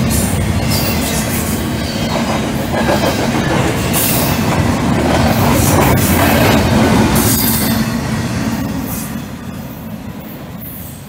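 Double-stack intermodal freight train passing close, its wheels rumbling over the rails with sharp flange squeals flaring up twice, then the sound fading as the train draws away near the end.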